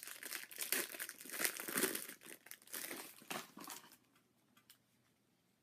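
Plastic trading card pack wrapper crinkling and crackling as it is handled and torn open, stopping about four seconds in.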